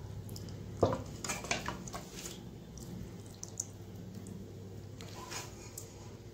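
A metal spoon clinking and scraping against a dish in a handful of light knocks, the loudest about a second in, over a faint steady low hum.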